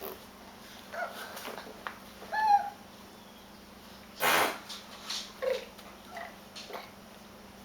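A baby babbling in short separate squeaks and squeals, the loudest a pitched squeal about two and a half seconds in, followed by a breathy burst a little after four seconds.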